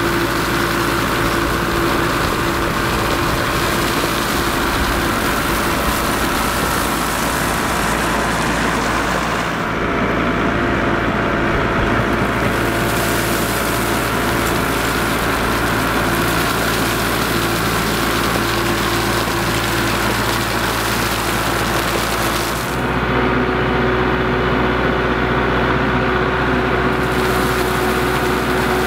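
Kubota MX5400 tractor's diesel engine running steadily while it carries a loaded bucket of rock, with two abrupt shifts in the sound about a third and three-quarters of the way through.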